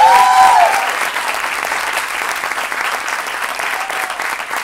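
Audience applauding steadily, loudest in the first second, with a short pitched cheer rising over the clapping at the start.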